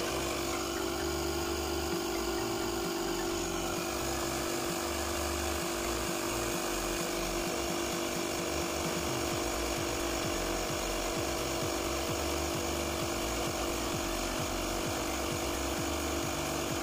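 12-volt digital tire inflator's compressor running steadily, pumping air into a car tyre as the pressure climbs from about 27.5 to 29.5 PSI.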